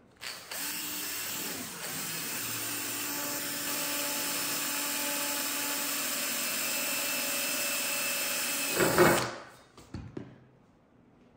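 Cordless drill running steadily as it bores a hole through a thick-walled aluminium tube with an eighth-inch wall, its pitch stepping up slightly a few seconds in. It stops after about nine seconds with a brief louder burst, followed by a couple of light knocks.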